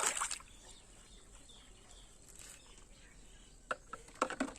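Water splashing off a washed plastic toy dies away at the start. Then it is nearly quiet, with a few light clicks and taps near the end.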